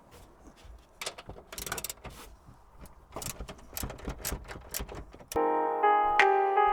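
Hand socket ratchet clicking in short runs with scattered metallic clicks, as 14 mm bolts are worked on. Piano music starts about five seconds in.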